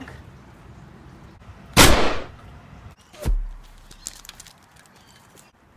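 A foam-dart blaster firing once, about two seconds in: a loud, short burst of noise. About a second and a half later comes a sharp knock, followed by a low hum.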